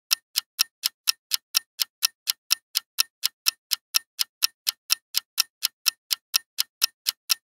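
Countdown-timer ticking sound effect: steady, evenly spaced clock-like ticks, about four a second.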